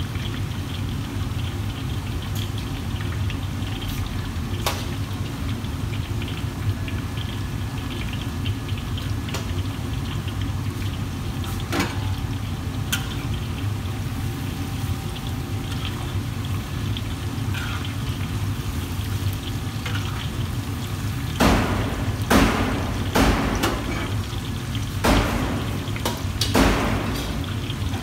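Commercial kitchen wok range: a steady low roar from the gas burners under hissing oil in a wok of deep-frying food. From about 21 seconds in, a run of loud metal strokes and scrapes as a ladle works in a wok.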